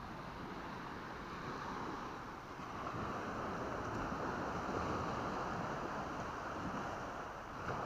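Small waves washing up a sandy beach: a steady rushing surf that swells about three seconds in and eases near the end.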